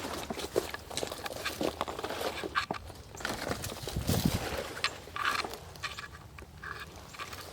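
Footsteps on a dry woodland trail, uneven in pace, with scattered crackles of leaves and twigs underfoot.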